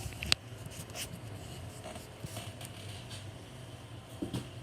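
A steady low hum with a few small clicks and taps; one sharp click comes just after the start and is the loudest sound.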